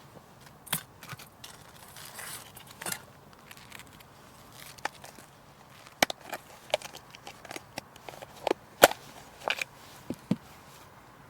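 Irregular sharp knocks, snaps and clicks, a dozen or so scattered through, with a brief rustle about two seconds in and the loudest knock near the end.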